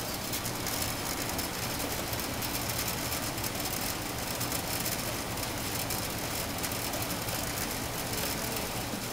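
Steady low mechanical hum under a constant hiss, unchanging throughout.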